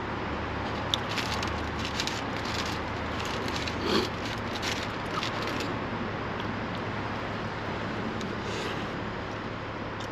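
Someone eating a chicken gyro: chewing with a run of short crackly rustles for several seconds, over a steady low hum.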